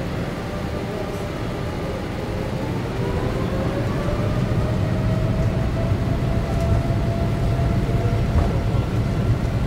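Boeing 787 Dreamliner jet engines heard inside the cabin, spooling up as the takeoff roll begins: a whine that rises slowly in pitch over a deep rumble, which grows louder about three seconds in.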